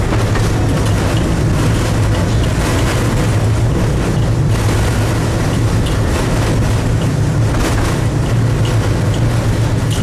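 Tatra-Yug T6B5 tram running, heard from on board: a steady low hum over continuous rolling rumble and rail noise.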